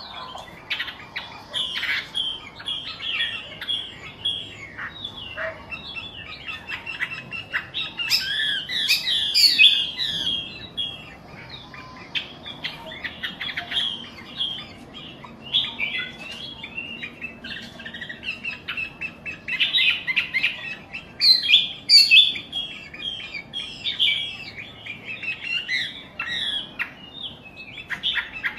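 Wambi songbird singing a rapid, continuous run of chirps and twittering notes, with louder bursts of song now and then.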